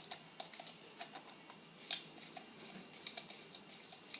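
Small, irregular clicks and ticks of the retaining screw being screwed back into a fishing reel's handle, with one sharper click about two seconds in.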